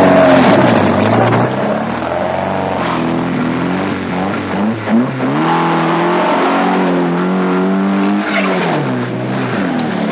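An open two-seater trials car's engine revving hard under load as it climbs a steep, rough, muddy trials hill. The note rises and falls several times, with a brief drop about five seconds in and another near eight seconds.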